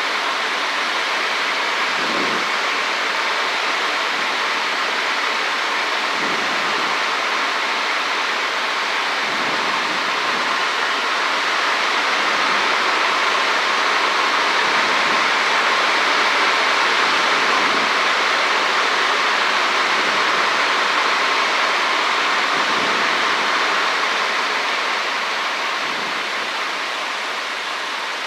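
Steady rushing cabin noise of a Cessna 152 in flight, its engine and slipstream blending into an even hiss. It swells a little through the middle and eases off near the end.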